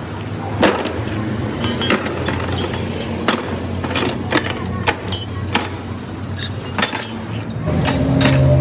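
Metal tools clinking and knocking on truck wheel and axle parts, a dozen or so sharp irregular strikes over a steady traffic hum. Near the end, a louder vehicle engine drone with a steady tone comes up.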